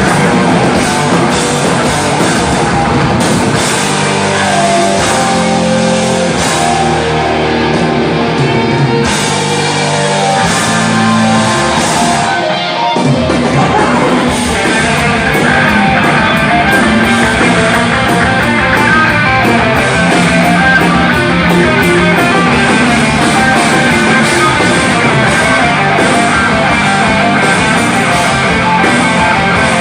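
Rock band playing loud, with electric guitar and drum kit. The highs thin out for several seconds, there is a brief dip about 13 seconds in, and then the full band comes back in.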